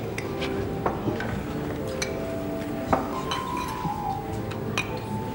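Wine glasses clinking together in a toast: a string of sharp clinks, each ringing on briefly with a clear tone, the loudest about three seconds in, over background music.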